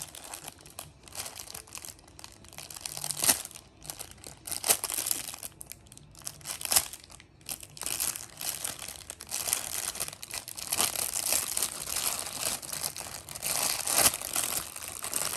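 Plastic packaging crinkling and rustling as a pop-it fidget toy is handled and unwrapped, with a few sharper crackles along the way.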